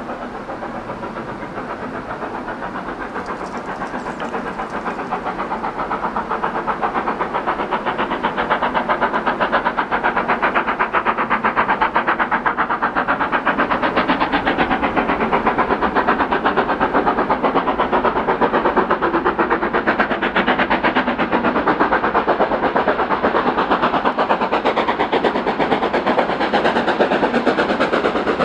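Two LMS Black Five 4-6-0 steam locomotives double-heading a train, their exhaust beats in rapid succession growing louder over the first several seconds as they approach, then staying loud and steady.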